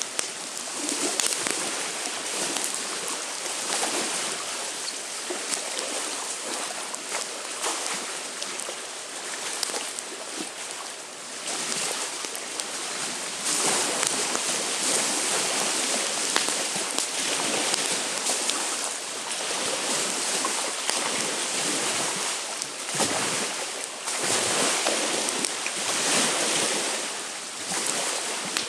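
Small waves washing onto a lake shore in the wind, the wash swelling and easing every few seconds, with a wood campfire crackling in sharp little clicks.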